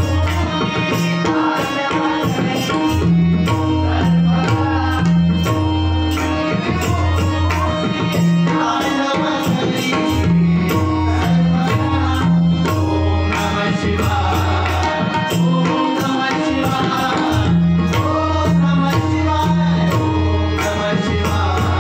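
Tabla and pakhawaj drumming together in a steady rhythmic cycle of deep, booming bass strokes and crisp treble strokes, over a sustained melodic accompaniment.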